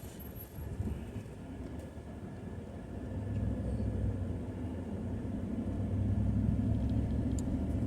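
A vehicle engine running with a low, steady rumble, growing louder about three seconds in.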